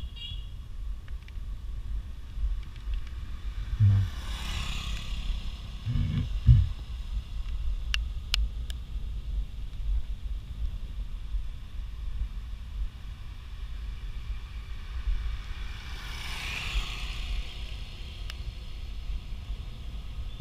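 Steady low wind and road rumble from riding a bicycle. A vehicle passes twice, each swelling and fading over a couple of seconds, with a couple of low thumps near the first pass and a few sharp clicks.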